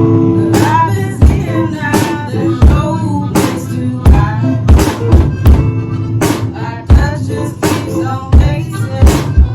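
A rock band playing live: a drum kit keeping a steady beat, with hard hits a little faster than one a second, under bass and guitar.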